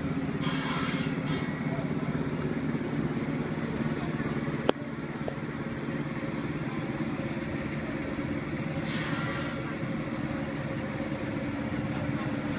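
Steady street noise of motorbike and vehicle engines running, with some voices. There are two short bursts of hiss, one about half a second in and one about nine seconds in, and a single sharp click about four and a half seconds in.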